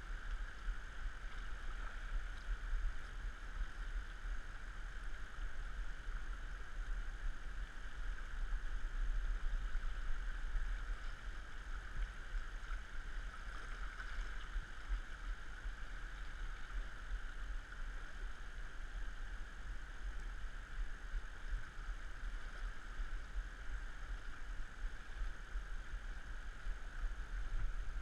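Steady rush of river current flowing around a wading angler, with a constant low rumble underneath.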